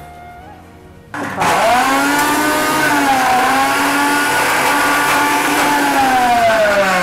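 Preethi Zodiac mixer grinder switched on about a second in, its motor running at full speed as it grinds dry coconut into chilli-tamarind paste for a chutney. Its pitch dips briefly under the load midway, then holds and slowly sinks near the end.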